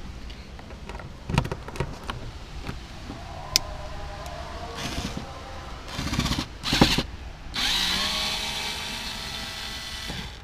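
Cordless screwdriver running after a few light knocks: short bursts of motor whir, then a steady whir for nearly three seconds near the end as it drives out the screw in a car door's inner handle recess.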